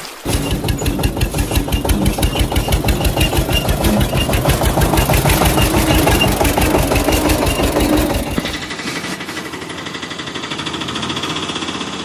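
Heavy construction-machine engine running with a fast, regular chugging beat; about nine seconds in it gives way to a thinner, higher-pitched sound with less low rumble.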